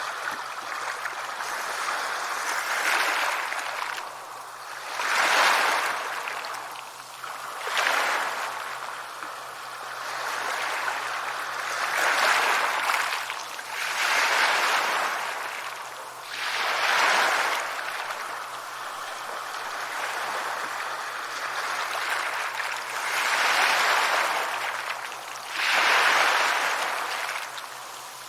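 Sea waves breaking and washing up on a shore, swelling and falling back again every few seconds.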